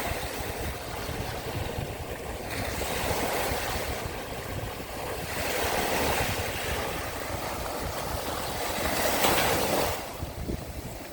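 Sea of Azov waves washing onto the shore, the surf swelling and easing several times, loudest near the end before it falls away. A low rumble of wind on the microphone runs underneath.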